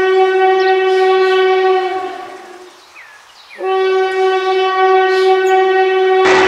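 Locomotive air horn sounding two long blasts on one steady note, separated by a short pause a little under a second long. Just before the end, a loud rushing noise of a running train comes in.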